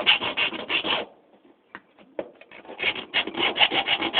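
Hand file rasping in rapid back-and-forth strokes across a faucet's steel rod, taking the surface off to check whether the metal is brass. The filing stops about a second in, then starts again after a short pause with a few light clicks in it.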